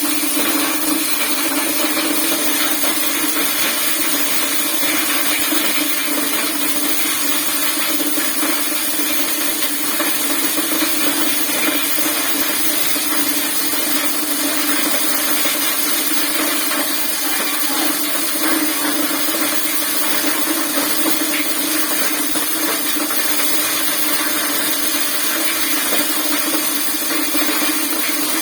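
Motorized corn sheller running steadily: a constant machine hum over a continuous noisy hiss, with no change in speed.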